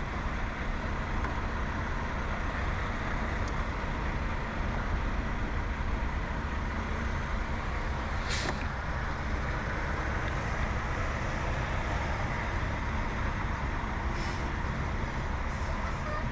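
Steady low rumble of an idling semi-truck diesel engine, with a short hiss about eight seconds in and a fainter one near fourteen seconds.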